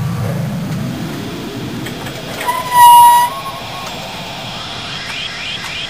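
Forklift horn giving one short, loud, steady beep about two and a half seconds in, over the low rumble of the forklift running.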